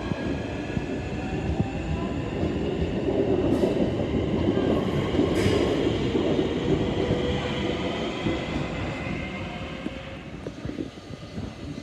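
Electric multiple-unit train moving through the station: wheels rumbling on the rails, growing louder to a peak about halfway through and easing off near the end, with several steady high whining tones from its traction motors.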